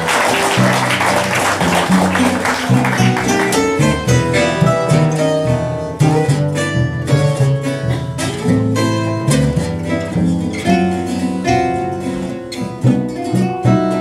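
Live gypsy jazz on two acoustic guitars and a plucked double bass, the guitars picking distinct notes over a walking bass line. An even noisy wash sits under the music for the first few seconds and fades out.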